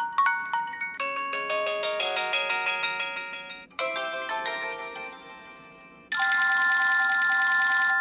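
Preloaded HTC One X ringtones previewed one after another, each cut off as the next is tapped: chiming electronic melodies that switch to a new tune about a second in and again just before the halfway point, then a loud steady electronic tone with several pitches held together for the last couple of seconds.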